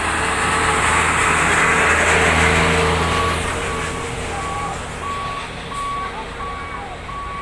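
An Isuzu light box truck drives past close by, its engine loudest about two seconds in and then fading. A truck's reversing alarm beeps steadily, about one and a half beeps a second, standing out once the passing truck has gone.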